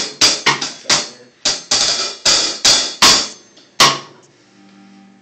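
Drum kit struck in a loose, uneven run of sharp hits, about a dozen in under four seconds, some ringing briefly like a cymbal. The hits stop a little before the end, leaving a faint low hum.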